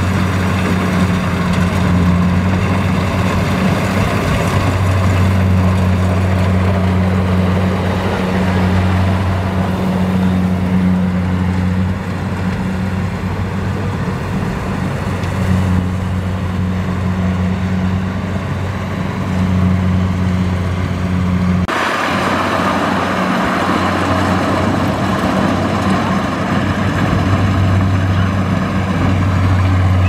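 Kubota DC70Plus rice combine harvester's diesel engine running steadily under load while cutting and threshing rice, a loud, even low drone. The sound changes abruptly about two-thirds of the way through, with more high-pitched machinery noise on top of the drone.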